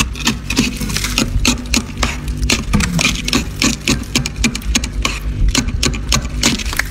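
Freezer frost crunching crisply, with sharp irregular crunches several times a second over a low steady hum.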